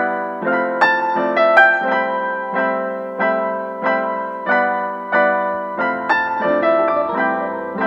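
Background piano music: notes struck at an even pace, each ringing and fading.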